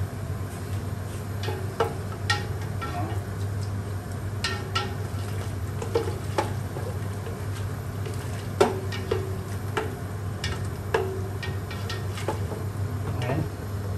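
Long wooden spoon stirring liquid in a stainless steel stockpot, knocking and scraping against the pot's sides at irregular moments, over a steady low hum. The stirring dissolves stock cubes in the liquid before it boils.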